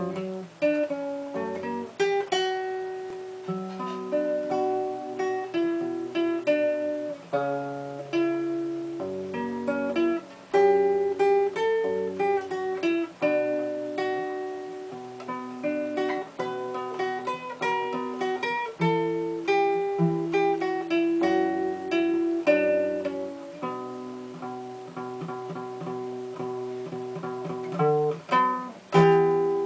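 Classical nylon-string guitar played fingerstyle: a plucked melody over bass notes, solo and unaccompanied.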